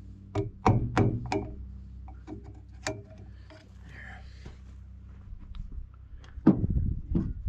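Sharp metallic taps and clinks of a hand tool on the gland end of a backhoe hydraulic cylinder, four in quick succession and one more a couple of seconds later, while working at a stuck snap ring. Two heavier thuds follow near the end.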